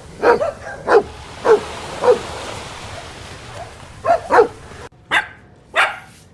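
A dog barking in short sharp barks, about eight in all: a quick run, a pause of about two seconds, then more. The background hiss drops away just before the last two barks.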